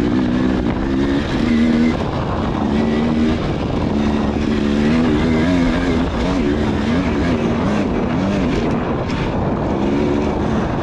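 Off-road racing dirt bike's engine being ridden hard, its pitch rising and falling over and over as the throttle is worked, over a constant rushing noise.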